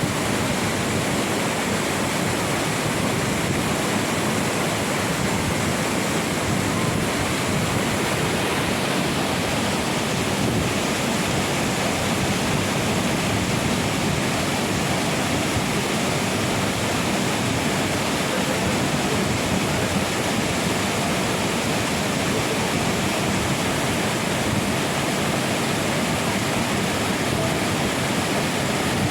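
Urlătoarea mountain waterfall's falling water making a steady, unbroken rushing noise.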